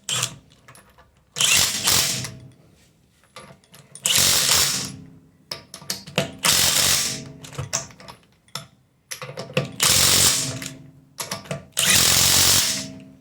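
A power tool runs in five bursts of about a second each, driving the wheel bolts home to fasten a wheel to the hub.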